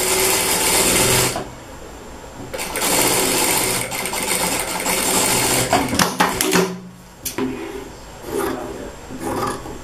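Domestic sewing machine stitching eyelet lace onto a fabric strip in two steady runs, the first stopping just over a second in and the second running from about two and a half to six seconds in. Then a few sharp clicks and the rustle of the fabric being pulled from the machine.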